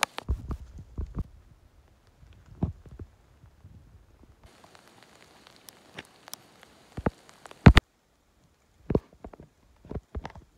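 Irregular knocks and thumps of footsteps and a jostled handheld phone while walking over a leaf-littered forest floor. About halfway through a steady hiss comes in, and it cuts off a few seconds later.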